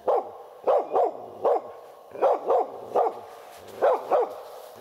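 Hunting laika barking repeatedly at a marten treed above it, about nine sharp barks, many in quick pairs. This is the dog baying the treed game to hold it for the hunter.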